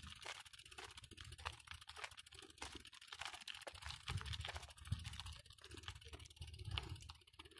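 Rapid, irregular clicking and rattling from a BMX bike being ridden, with a low rumble underneath.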